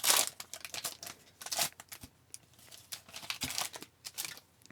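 Wrapper of a hockey card pack being torn open and crinkled, in several short rustling bursts, the first the loudest.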